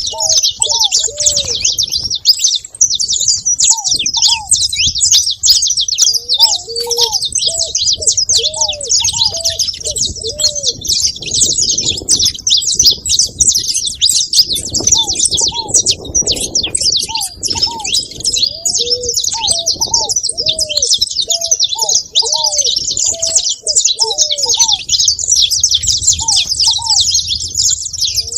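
A group of saffron finches chattering in dense, continuous high chirps, while ground doves give short, low cooing notes over and over.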